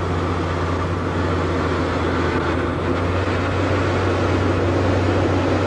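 Steady low droning noise with a constant deep hum.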